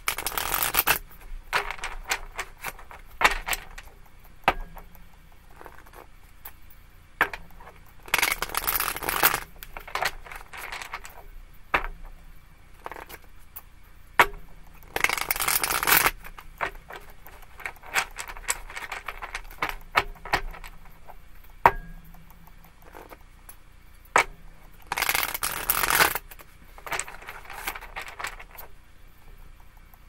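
A tarot deck being shuffled by hand: four longer bursts of cards rustling and flapping against each other, with many short taps and clicks of cards between them.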